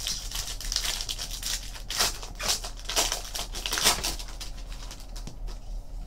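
Foil trading-card pack wrapper crinkling and tearing as it is opened, in a run of sharp crackles, then quieter rustling of the cards near the end.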